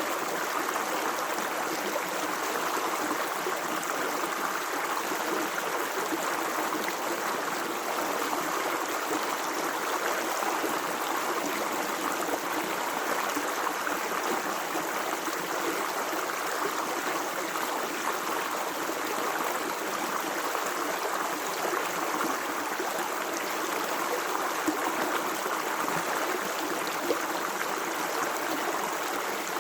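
Water running steadily in a stream, an even rush with small gurgles and splashes.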